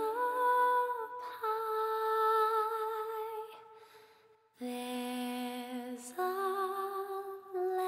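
A slow, wordless lullaby hummed in long held notes that step from pitch to pitch, with a brief break about halfway through before the melody resumes.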